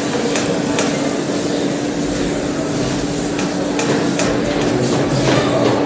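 Chalk tapping and scraping on a blackboard as figures are written, heard as irregular sharp clicks over a steady low hum.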